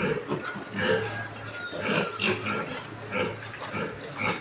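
Piglets grunting and squealing at feeding, short calls coming several times a second.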